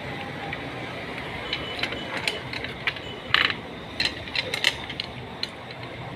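Irregular light clicks and taps of small hand tools being handled at a circuit-board repair bench, over a steady hiss; one click about three and a half seconds in is louder.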